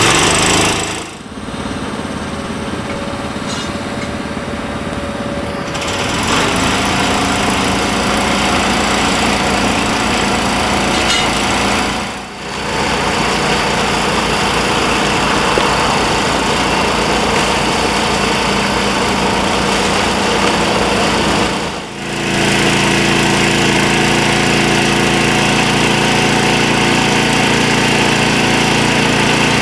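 Petrol engine of a hydraulic power pack running steadily. The sound dips briefly and changes character three times: about a second in, around twelve seconds and around twenty-two seconds.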